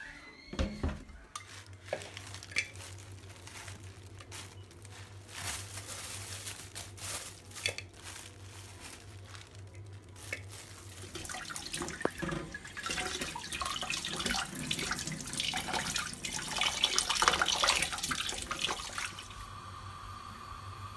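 Tap water running into a stainless steel sink, splashing as leafy greens and dried fish are rinsed by hand, louder in the second half.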